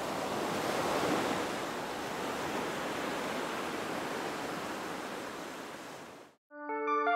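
Ocean surf sound effect: a steady wash of waves that swells in the first second and fades out near the end. It is followed by a few notes of music as the intro theme begins.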